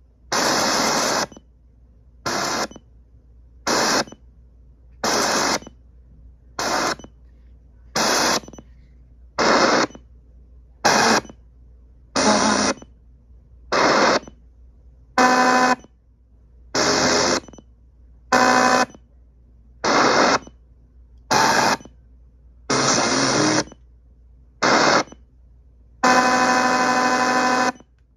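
Sony WM-FX675 Walkman radio played through a small speaker while its tuner steps from frequency to frequency: short bursts of radio static and snatches of station sound, about one every one and a half seconds, with silence between each step. A longer burst of station sound comes near the end.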